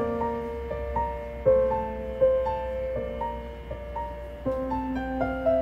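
Background music: a slow melody of single sustained notes on a piano-like keyboard.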